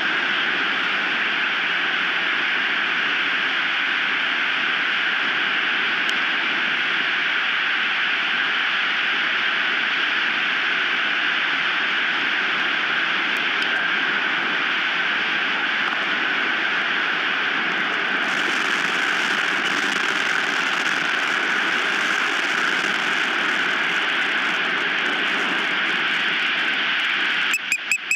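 Strong wind blowing against an osprey nest cam's microphone, a steady rushing noise with no letup. Just before the end an osprey starts a rapid series of high, piping chirps, about five or six a second.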